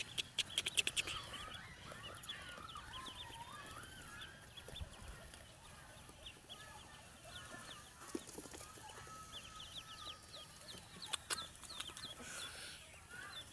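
A brood of newly hatched ducklings peeping: many short, high-pitched cheeps, coming thick and fast through most of the stretch. A quick run of sharp clicks sounds about a second in.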